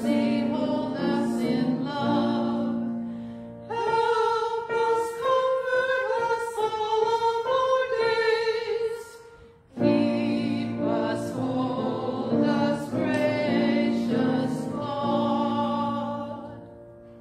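Two women singing a slow, hymn-like sung prayer in parts. For a few seconds in the middle a single higher voice sings alone, then the parts join again and the singing fades away near the end.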